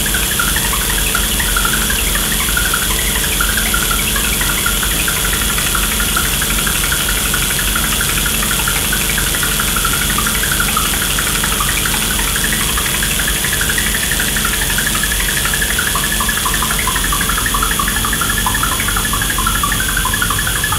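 Experimental electronic music: a dense, unbroken drone texture with a low rumble underneath and a flickering, chattering noise layer above it, plus faint steady high tones.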